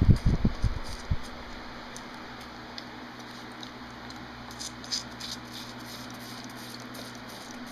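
White-tailed deer fawn sucking at a feeding bottle: soft wet clicks and smacks, a cluster of them about five seconds in, over the steady hum of an electric fan. A few low thumps in the first second.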